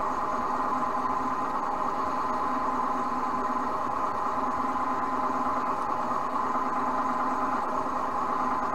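Bench drill's electric motor running with a steady hum while a twist drill bores a cross hole through aluminium bar.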